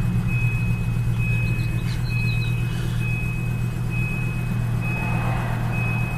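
1996 Volvo 850's inline five-cylinder engine idling steadily just after a cold start, running smoothly after a week unstarted, with a faint steady high whine above the engine note.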